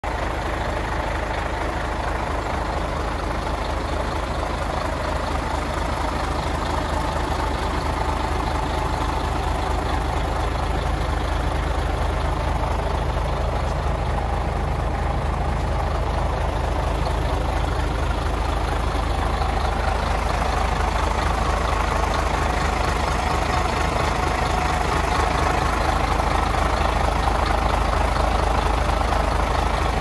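Truck's diesel engine idling steadily, heard close up beside the loader crane. It gets a little louder toward the end.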